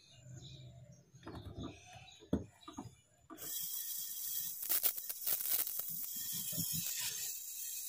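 Copper pipe being handled at a fridge compressor with a few knocks, then about three seconds in a brazing torch flame starts with a sudden steady hiss as the pipe joint at the compressor is heated for brazing, with a few clicks partway through.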